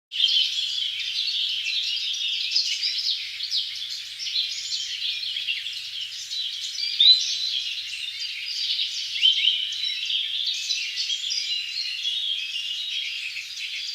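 Many small birds chirping and twittering at once in a steady, dense chorus of short, high-pitched calls.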